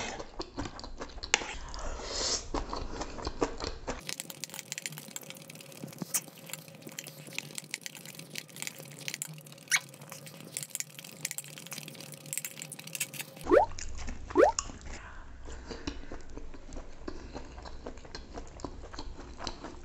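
Close-miked eating: chewing and slurping noodles, with many small clicks of a fork and spoon against a plate.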